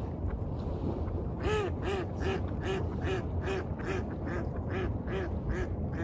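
A duck quacking in a quick even series, about eleven quacks at two to three a second, starting about a second and a half in, over a steady low rush of waves.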